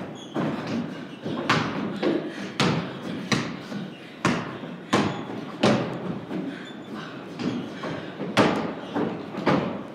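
Basketball being dribbled and bounced on a wooden plank floor: a string of sharp thuds, roughly one and a half a second, each ringing briefly in the big hollow wooden room.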